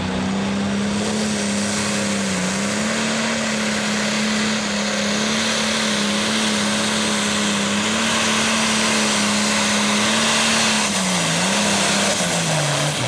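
The turbocharged diesel engine of a John Deere Pro Stock pulling tractor running at full power, dragging the weight sled down the track. Its note holds steady through the pull, sags once near the end, then drops away.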